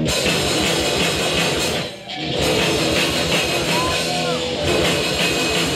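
Live hardcore punk band playing loud distorted guitar over fast drums. The band stops briefly about two seconds in, then crashes back in.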